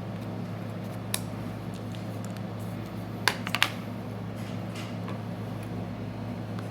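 A few small, sharp clicks as iPhone parts are handled during the hook-up of a new screen for testing; two louder ones come in quick succession just past the middle. A steady low electrical hum runs underneath.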